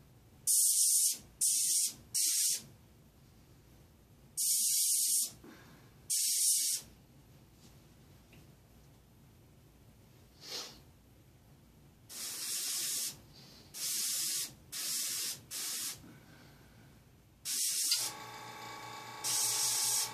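Airbrush spraying paint in short hissing bursts, about ten in all, with quiet gaps between them. Near the end a steady hum sets in underneath.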